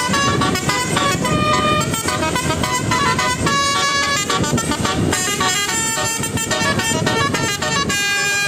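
Basuri telolet bus horns, multi-tone horns playing a melody of quick stepped notes, held loud throughout, over a dense low background din.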